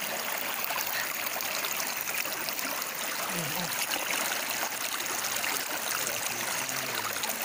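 Shallow rocky river flowing over and between stones, a steady rushing trickle without a break.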